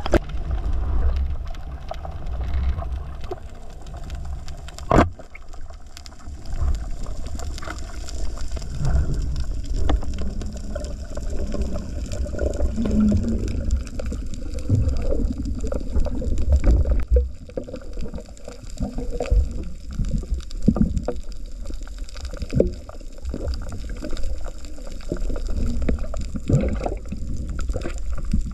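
Water movement heard through a camera underwater: a muffled low rumble and sloshing that swell and fade irregularly, with scattered knocks and one sharp click about five seconds in.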